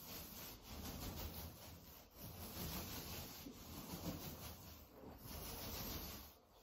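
An 18-inch paint roller on an extension pole rolling wet paint onto a wall, a soft sticky rubbing that swells and fades with each long up-and-down stroke and briefly dips as the stroke turns.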